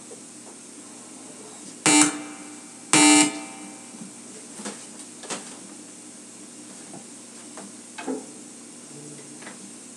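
Two short, loud electric guitar chord stabs about a second apart, the second a little longer, followed by a few faint clicks and string noises over a steady low amplifier hum.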